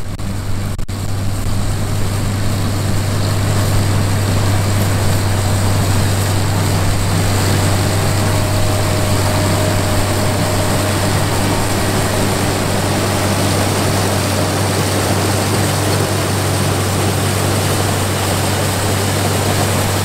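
International Farmall 656 tractor engine running steadily under load, a deep, even drone, mixed with the mechanical noise of the New Idea 324 corn picker it drives as it works through the corn. The sound builds over the first couple of seconds and then holds level.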